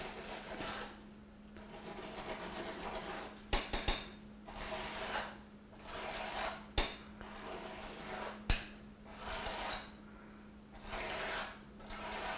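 Metal strike-off bar sawed back and forth across the rim of a metal concrete measuring bowl, scraping off excess fresh concrete in repeated scraping strokes about a second apart, with a few sharp clicks of metal on the rim.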